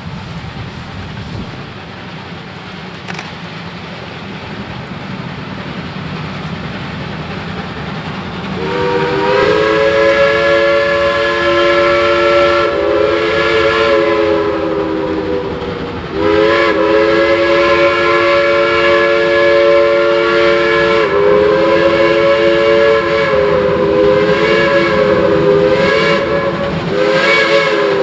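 Steam whistle of an approaching Shay geared steam locomotive, a chord of several tones, blowing a long blast from about a third of the way in, then after a brief break a longer blast followed by shorter toots near the end, over a steady low rumble.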